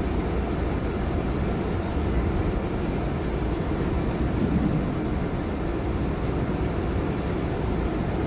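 Steady low rumble inside a car moving slowly across a ferry's enclosed vehicle deck, heard from within the cabin.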